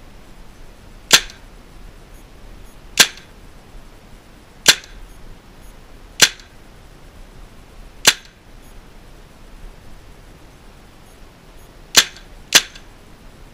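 HPA-powered Tippmann M4 airsoft rifle firing seven single shots, roughly one every two seconds, with the last two about half a second apart. This is a test-firing with the velocity screw turned fully in to lower the muzzle velocity.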